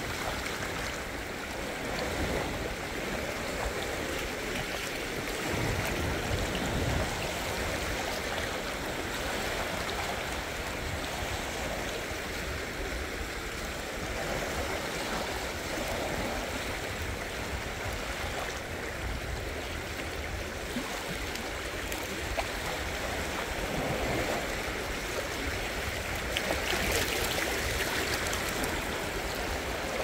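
Small ocean waves washing over and around low rocks at the water's edge, a steady rush and gurgle of water that swells and ebbs every few seconds.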